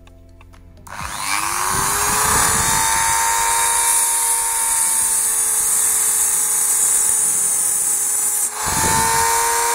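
Dremel rotary tool spinning up about a second in and cutting away plastic air-vent slats, running with a steady high whine. Near the end it dips briefly and picks back up.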